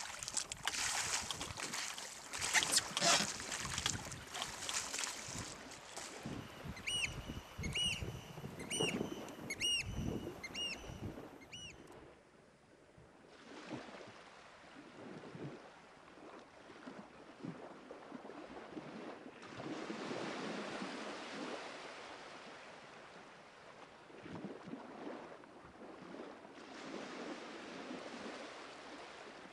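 Wind buffeting the microphone over the rush of water around a small sailing boat. About a third of the way in comes a run of about six short high chirps, evenly spaced. The wind drops away near the middle, then builds again.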